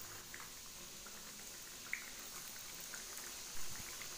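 Battered tempeh pieces deep-frying in hot oil in a small pan: a steady sizzle with scattered small pops. A soft bump comes about three and a half seconds in.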